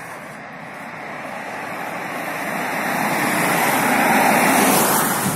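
A car driving past on a wet street: tyre hiss swelling to its loudest about four seconds in, then dropping away.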